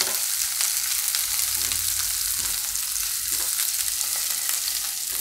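Chopped carrot and capsicum sizzling in hot oil in a kadhai and being stirred, a steady hiss with fine crackles and a few soft strokes of the spoon through the vegetables.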